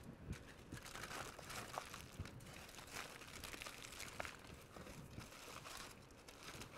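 Faint, irregular crinkling and crackling of aluminium foil being folded and pressed by hand into a packet.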